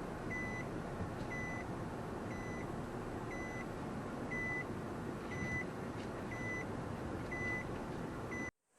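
A vehicle's reversing beeper, a short high beep about once a second, over steady background noise.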